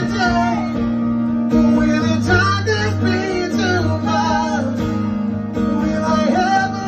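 Live solo acoustic guitar being strummed, with a man singing over it.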